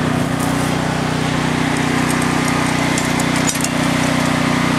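An engine running steadily at idle, a constant low hum, with a few light metallic clicks about three seconds in.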